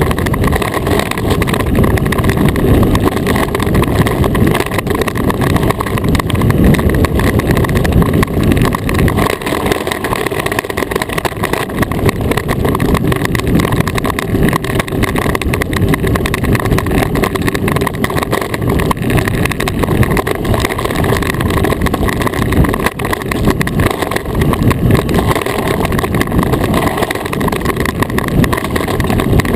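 An iceboat's runners rumbling steadily over hard, smooth lake ice at speed, mixed with wind rushing past the hull-mounted camera. The noise is loud and continuous, deepest and strongest in the low range.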